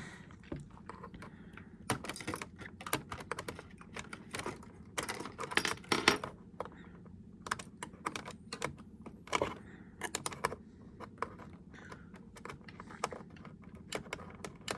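Irregular light clicks, taps and scrapes of a small screwdriver bit working at a stubborn keyboard screw in the plastic underside of a ThinkPad T61 laptop, over a faint steady hum.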